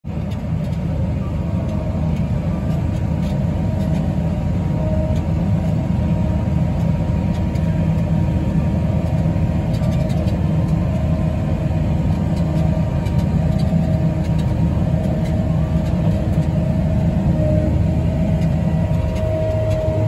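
A John Deere combine and the tractor pulling a grain cart running side by side while the combine unloads wheat through its auger. The engines and machinery make a steady low drone with a faint wavering whine above it.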